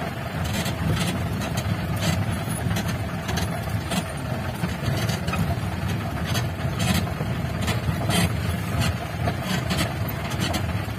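Mahindra jeep's engine running under load as it drives over a rough dirt track, heard from inside the cab, with frequent short knocks and clatter as it jolts over the ruts.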